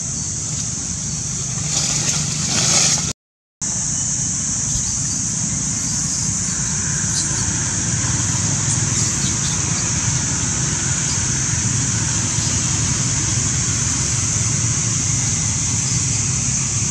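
Steady outdoor background noise: a constant high hiss over a low rumble. It drops out to silence for a moment about three seconds in.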